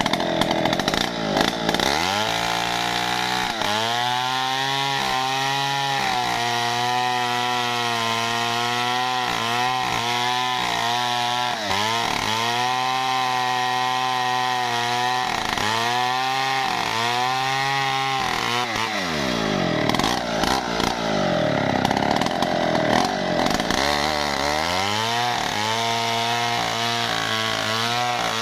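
Stihl MS070 two-stroke chainsaw cutting into a standing wadang tree trunk, its engine pitch dipping and recovering over and over as it cuts. Near the start and again about two-thirds of the way through, the engine slows right down and then revs back up.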